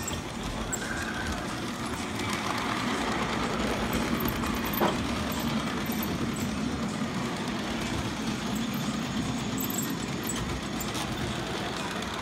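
Electric model train running on the layout's track: a steady rumble of wheels and motor, with a single click about five seconds in.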